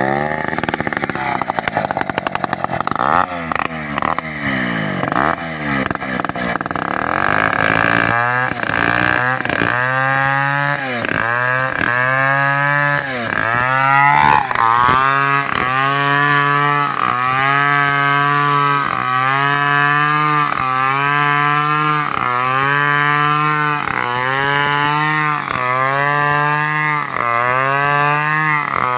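Two-stroke chainsaw revving unevenly, then cutting under load through a coconut palm trunk, its engine pitch dipping and recovering about once a second as the saw bogs in the cut and frees up.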